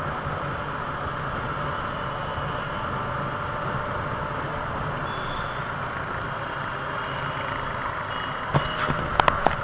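Motorcycle riding in traffic, picked up by an action camera's internal microphone: steady engine and wind-and-road noise, with a few sharp clicks near the end.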